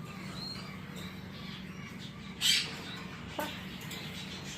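A parrot gives one short, harsh squawk about halfway through, with a faint click a second later over a steady low hum.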